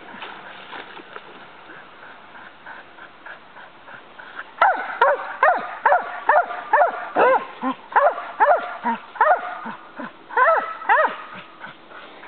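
Leashed dog whining in short, high cries that rise and fall in pitch, faint at first and much louder from about four and a half seconds in, about two a second. The dog is excited and frustrated at being held back from the water while someone fishes.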